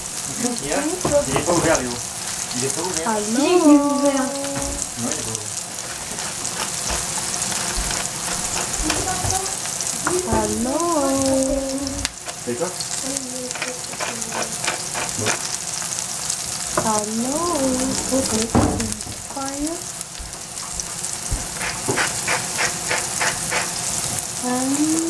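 Shiitake mushroom slices sizzling steadily as they fry in oil in a pan. A short sing-song, voice-like call that rises and falls in pitch comes back about five times over the sizzle.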